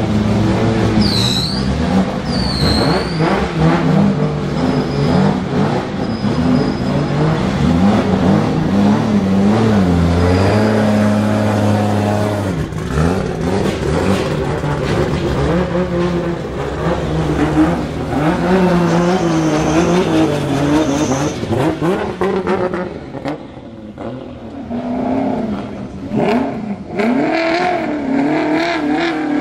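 Drift car engines idling and revving in turn as the cars move slowly off, the pitch rising and falling with each throttle blip. Near the end an engine revs sharply several times in a row.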